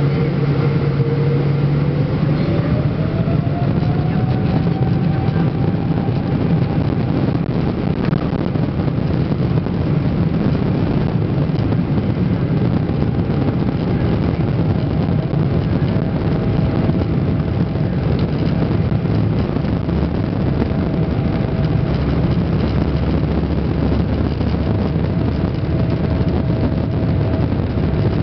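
Boeing 777-200ER's GE90 turbofan engines spooling up to takeoff thrust: a whining tone climbs in pitch over the first few seconds, then holds steady over a loud, continuous low rumble through the takeoff run.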